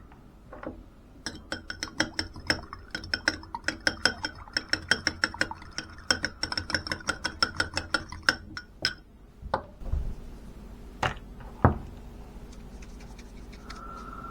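A fork beating egg in a bowl: a fast, even run of ringing clinks, several a second, for about eight seconds. Then it stops, followed by a dull thump and two separate sharp knocks of utensils being set down.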